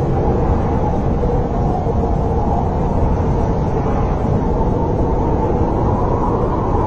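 Snowstorm wind blowing steadily with a low rumble, with faint wavering howling tones over it.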